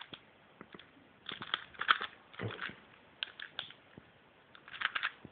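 Plastic clicking and clacking of a Meffert's Professor Pyraminx being twisted by hand, in four short runs of layer turns with quiet gaps between them.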